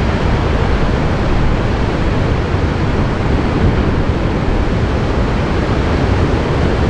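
Steady, even noise of heavy ocean surf and wind, with no separate crashes.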